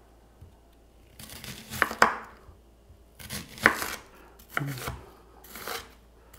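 Stainless steel knife slicing through onion: about four unhurried strokes, each a short rasping cut that ends in a sharp click.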